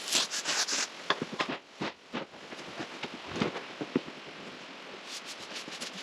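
Rustling with scattered light knocks and clicks of things being handled, then a quick run of ticking near the end.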